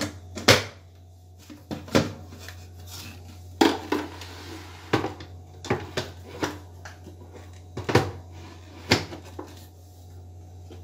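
Plastic knocks and clicks as a mixer-grinder's blender jar is lidded and seated onto its motor base: about a dozen short, sharp knocks at uneven intervals, with the motor not yet running.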